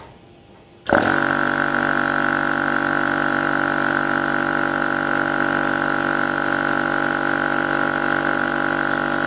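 DAVV SCU50 300-bar (4,500 PSI) high-pressure air compressor starting abruptly about a second in and running steadily, with a high whine over a fast low pulsing, as it pumps air into a small air tank. It cuts off suddenly at the end.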